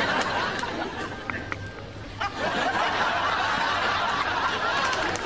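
People laughing and giggling with some chatter, steady throughout with a short lull about two seconds in.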